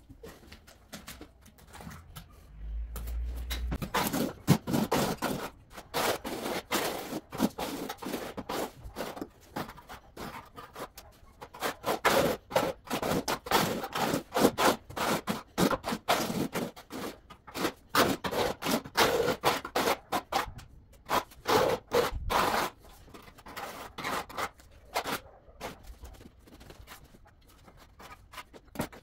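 Steel notched trowel scraping and combing cement tile adhesive across a concrete floor in quick repeated strokes, with short pauses between runs.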